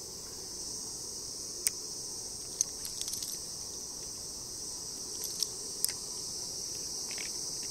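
A steady, high-pitched chorus of insects, with a few sharp clicks over it in the first half and again around five to six seconds in.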